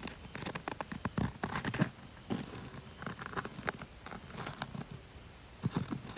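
Irregular crunching and rustling of dry forest-floor debris, with sharp crackles and a few duller low knocks, heard from inside a tent.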